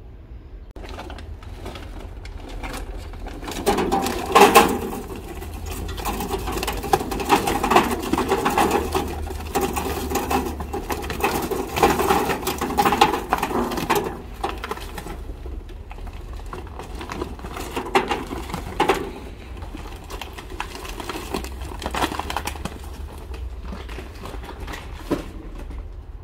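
Charcoal being tipped from a bag into a metal charcoal grill: a fast run of clattering and rattling, heaviest in the first half, then sparser knocks and clinks.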